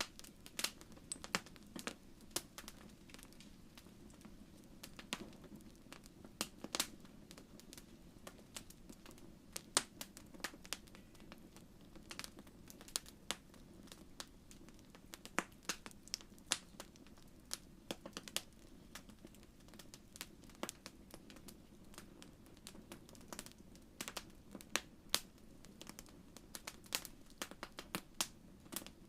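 Wood fire crackling in a fireplace: irregular sharp pops and snaps, several a second in clusters, over a soft steady low rush of flame.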